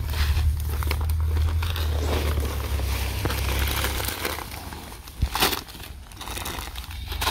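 Plastic seed packets and woven fertilizer sacks crinkling and rustling as they are handled and dragged. A low rumble runs under it and stops about four seconds in, and a couple of sharper crackles come about five seconds in.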